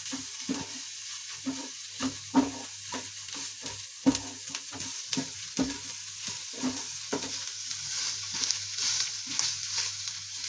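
A wooden spatula stirring and scraping chopped onion and spice masala around a pan as it fries in a little oil, about two strokes a second, over a steady sizzle.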